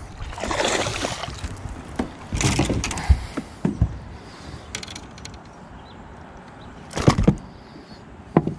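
Handling noise on a fishing boat: a rustling burst near the start, then several separate knocks and thumps as fishing rods are handled and laid among the others on the boat deck.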